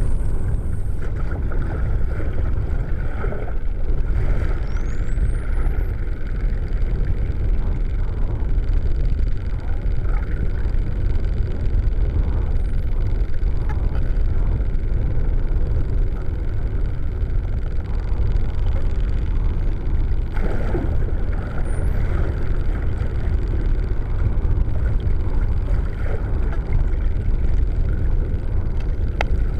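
Steady, muffled underwater rumble of moving water on a submerged camera. Over it come a few faint, high, rising whistles from dolphins: one about five seconds in, then around thirteen and twenty-two seconds.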